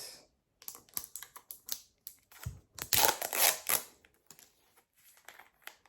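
Clicks and crackles of a plastic protein-shake bottle being handled and its cap twisted open. A louder crackling stretch comes about three seconds in, with scattered small clicks before and after.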